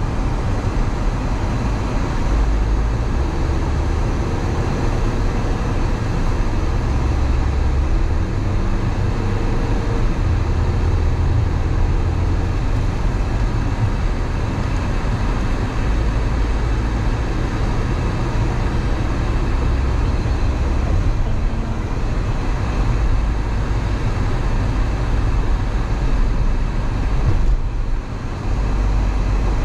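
Road noise heard inside a moving car: a steady low rumble of tyres and engine with the heater blowing, dipping briefly near the end.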